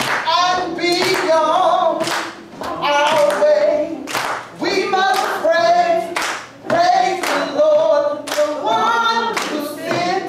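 Gospel singing without instruments, with hands clapping along in a steady beat.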